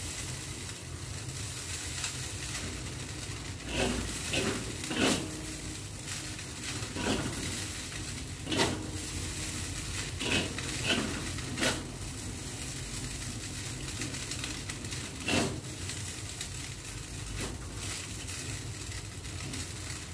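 Bihon rice noodles stir-frying in a wok: a steady sizzling hiss, broken by about ten knocks and scrapes of a metal spatula against the wok, bunched in short runs.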